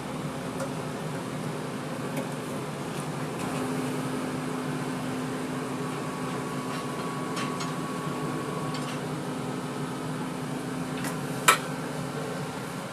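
A steady machine hum, like a fan or kitchen appliance running, with a few light clicks and one sharp clink near the end.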